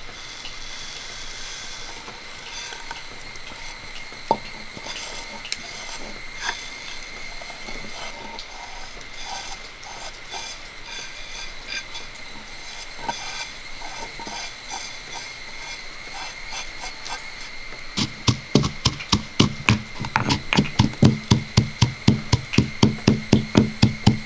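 Dry roasted mustard and fenugreek seeds pattering faintly into a stone mortar, with scattered light ticks. About three quarters of the way in, a stone pestle starts pounding the seeds in the stone mortar, sharp strikes about three a second.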